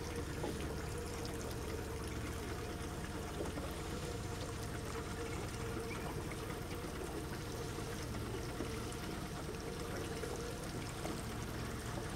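Steady rushing water noise with a faint, even hum beneath it.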